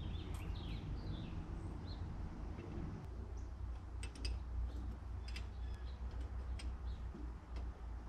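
Light metal clicks of a wrench working the mounting nuts of a one-barrel carburetor, scattered and irregular from about three seconds in, over a low steady hum. Birds chirp in the first two seconds.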